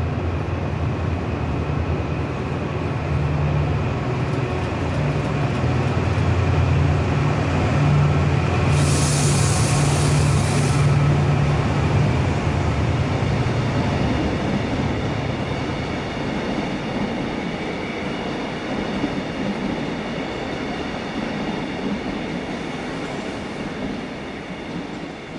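Diesel trains moving through a station: a TransPennine Express Class 68 diesel locomotive's engine drones steadily for the first half, with a hiss of air lasting about two seconds around nine seconds in. The engine drone then fades, leaving the quieter rumble of train wheels on the rails as a multiple unit passes.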